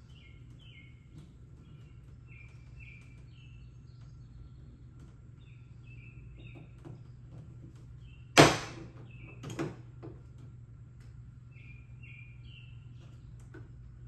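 Rivet gun setting a pop rivet through the hood latch striker: one loud, sharp snap about two thirds of the way in, the mandrel breaking as the rivet sets, then a fainter snap about a second later. Birds chirp faintly over a low hum.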